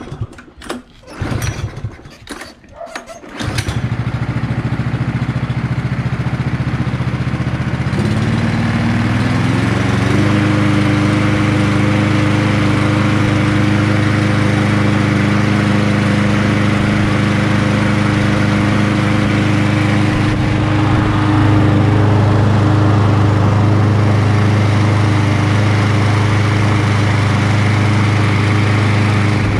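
Mountfield SP454 lawnmower's 140cc petrol engine pull-started with a few tugs on the cord, catching about three and a half seconds in. It is its first start after the carburettor was cleaned. It then runs steadily, picking up speed a few seconds later and settling at a constant speed.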